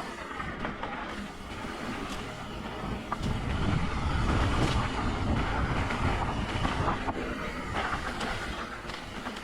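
Mountain bike riding a dirt trail: a rattling rumble of tyres and frame with scattered clicks, growing louder about three seconds in and easing off near the end.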